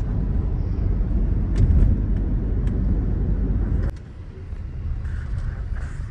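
Car cabin noise while driving: a steady low rumble of engine and tyres on the road, which drops abruptly to a quieter rumble about four seconds in.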